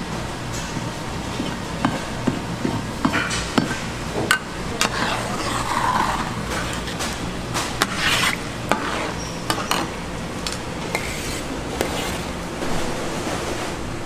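Cooking utensils knocking, scraping and clinking against pans and dishes in scattered sharp strokes, over a steady low hum.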